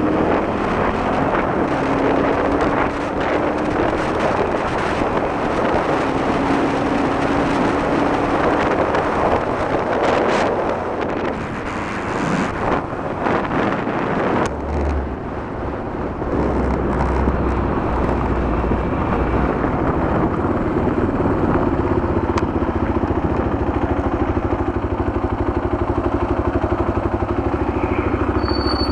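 Honda XL250 single-cylinder four-stroke motorcycle engine running under way, its pitch wavering up and down with the throttle, with some wind noise on the microphone.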